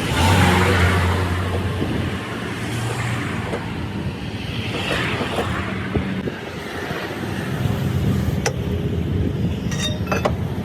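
Motor vehicle engine running with a steady low hum, with swells of road traffic noise and a few sharp clicks near the end.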